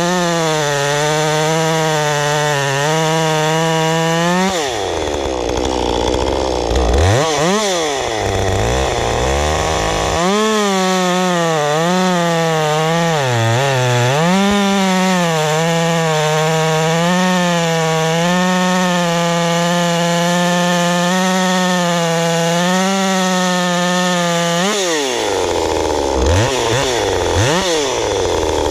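Ported Husqvarna 550 XP hybrid two-stroke chainsaw at full throttle, cross-cutting a thick log with a rough new chain. It holds a steady pitch in the cut, comes out about four and a half seconds in and is blipped up and down several times, then makes a second long, steady cut of about fifteen seconds. About twenty-five seconds in it comes out of the wood and revs up and down again.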